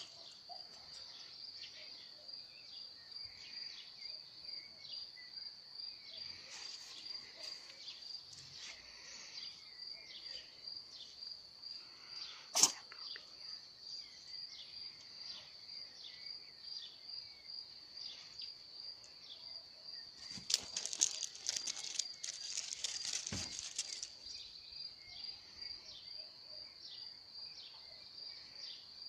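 Crickets chirping in a steady, high, pulsing trill, with one sharp click about twelve seconds in and a few seconds of louder rustling, crunching noise about two thirds of the way through.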